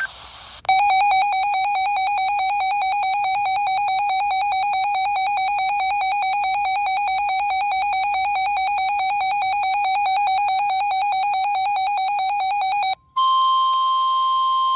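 Weather-radio alert alarm: a loud electronic warbling tone for about twelve seconds. After a brief break, the steady NOAA Weather Radio 1050 Hz warning alarm tone starts, which signals that a new warning is about to be broadcast.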